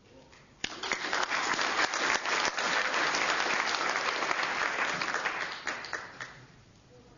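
Audience applauding, starting suddenly just over half a second in and dying away over the last second or so.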